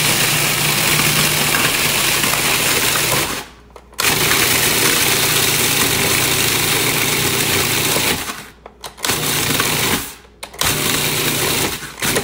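Countertop food processor grinding graham crackers into crumbs: a loud, steady motor run that is stopped briefly about a third of the way in and twice more near the end, then restarted each time.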